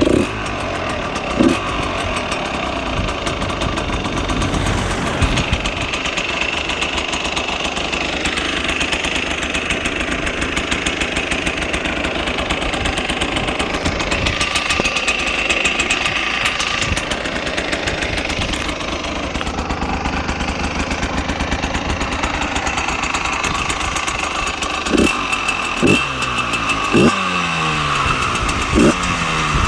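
Stock 2014 Husqvarna SM 125's two-stroke single-cylinder engine running cold at a steady idle through the standard exhaust, then given about five quick throttle blips near the end, each a short rise and fall in revs.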